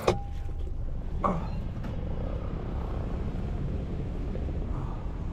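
Steady low rumble of city traffic, with a couple of brief clicks.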